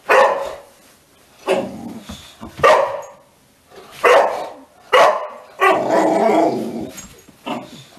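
Boxer dog barking in a play bow: about seven loud barks roughly a second apart, one drawn out longer about six seconds in.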